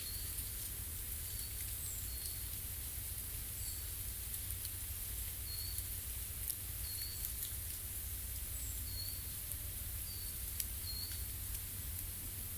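Forest ambience: a small bird gives short, high chirps over and over, about one a second, with a few faint clicks and a low steady rumble underneath.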